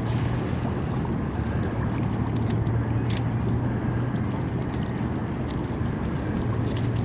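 Floodwater surging up through a sinkhole in submerged pavement and churning at the surface under pressure, with wind noise on the microphone and a steady low hum underneath.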